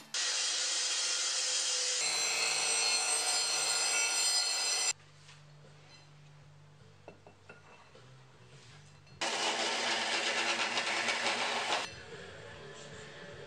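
A power tool runs under load on stainless steel bar stock in two bursts: one of about five seconds, then after a quiet gap a shorter one of about three seconds, each starting and stopping abruptly.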